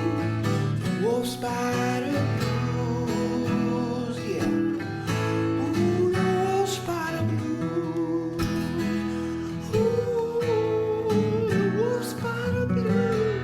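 Instrumental break in a blues song: guitar music, with a lead line that bends up and down in pitch over a steady backing.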